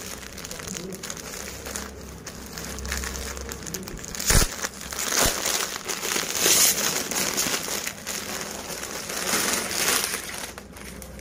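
Plastic packaging crinkling and rustling as hands handle and open a plastic-wrapped saree parcel, in uneven swells, with a sharp knock about four seconds in.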